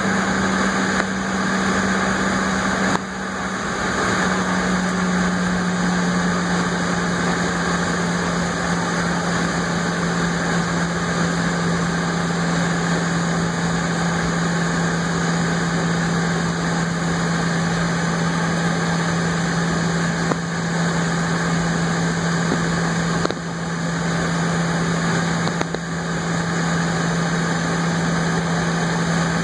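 Airliner cabin noise during taxi: the jet engines running at idle as a steady drone with a strong low hum, which drops slightly in pitch about three seconds in.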